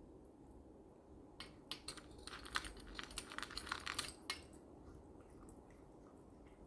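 A pet eating dry kibble: a burst of sharp crunching and clicking of hard food pieces for about three seconds, starting about a second and a half in.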